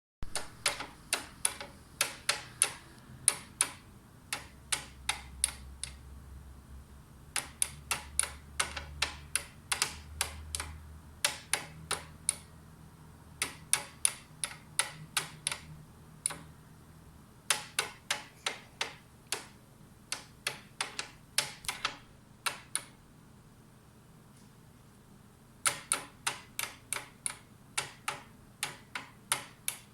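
Cockatiel tapping its beak on a mirror: sharp clicks about two to three a second, in runs of a few seconds with short pauses between, the longest pause coming about three quarters of the way through.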